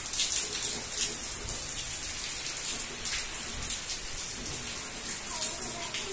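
Heavy rain falling on roofs and a wet paved courtyard: a steady, dense hiss with scattered close spatters of drops.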